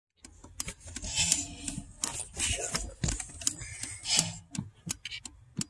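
Irregular clicks and rubbing handling noise from a camera being moved about, over a faint steady low rumble.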